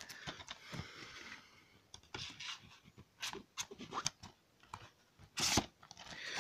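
Plastic DVD cases and the cardboard box-set sleeve being handled: scattered light clicks and scrapes, with a louder brief rub about five and a half seconds in.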